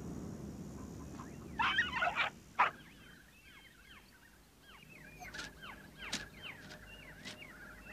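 Birds calling: a burst of loud, harsh calls about two seconds in, then a run of many short, falling chirps.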